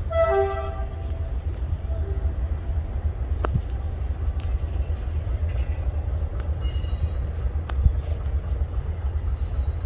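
Train horn sounding for about a second, then a shorter toot about two seconds in, as a passenger train of new coaches departs. A steady low rumble runs underneath, with scattered faint clicks.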